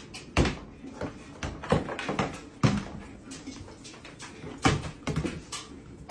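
A series of irregular knocks and thumps, several strong ones spread unevenly a second or so apart, with lighter clatter between.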